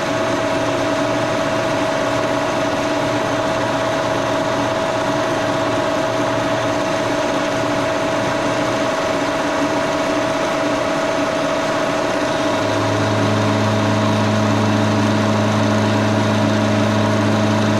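A 1942 Brown & Sharpe No. 2 plain milling machine running steadily while its cutter takes a roughing cut in aluminum, with a constant whine. About two-thirds of the way in, a deeper steady hum joins and the sound gets slightly louder.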